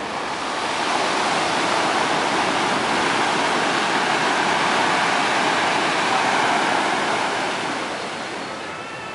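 Ocean surf breaking and washing up a beach: a steady rushing wash that swells about a second in and eases off near the end.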